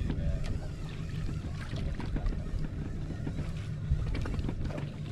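Steady low rumble on a small outrigger fishing boat at sea, with scattered light clicks and knocks.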